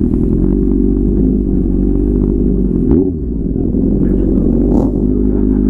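Kawasaki Z800's inline-four engine running at low speed under light throttle, its pitch dipping and rising again about three seconds in.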